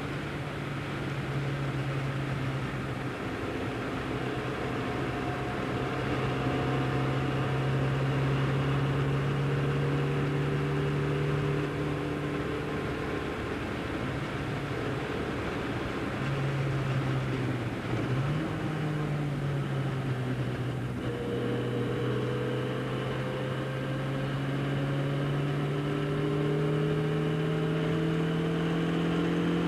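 Austin-Healey Sprite's tuned 1275cc four-cylinder engine, fitted with a large-bore exhaust, running hard under load, heard from inside the cabin over a steady hiss. The engine note holds fairly steady, dips briefly a little past halfway, then climbs steadily through the last third as the car accelerates.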